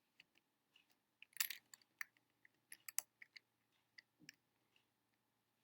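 Irregular small plastic clicks from a GAN 356 X speed cube's centre tension adjuster being spun loose by finger, loudest about one and a half and three seconds in.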